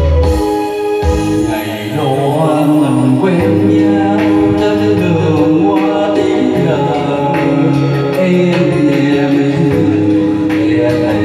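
Live music with electronic keyboard backing; about two seconds in, a man starts singing into a microphone over it.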